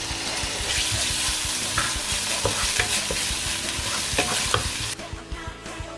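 Chicken strips and chopped garlic sizzling loudly in hot cooking oil, with scattered clicks of a utensil stirring in the pan. The sizzle drops off sharply about five seconds in.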